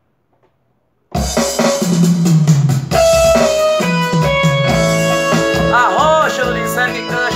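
Electronic keyboard playing a full band-style intro with drums, bass and guitar sounds, starting suddenly about a second in after near silence.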